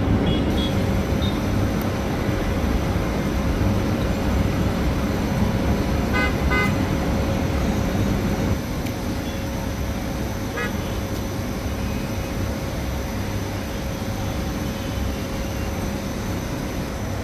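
Busy city street traffic: a steady rumble of engines and tyres, with short horn toots in a quick cluster about six seconds in and one more near ten and a half seconds.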